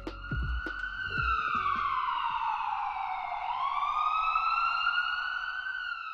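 Emergency vehicle siren wailing: its pitch slides slowly down for about two seconds, then swings back up and holds high.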